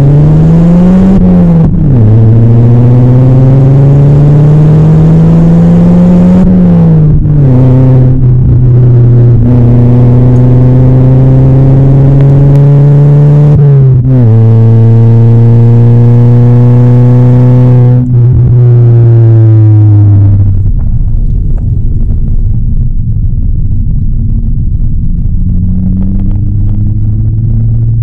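Stage 2-tuned Skoda Laura 1.8 TSI's turbocharged four-cylinder under hard acceleration, heard at the twin exhaust tips. The engine note climbs, drops sharply at each of several upshifts, and climbs more slowly in the higher gears. About two-thirds of the way through the note falls away as the throttle comes off, leaving a road and wind rumble.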